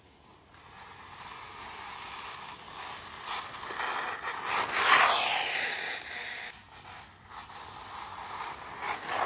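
HPI WR8 Flux electric RC rally car passing close about five seconds in: its motor whine rises as it approaches and drops in pitch as it goes by, with tyre noise on gravel. It comes past a second time near the end.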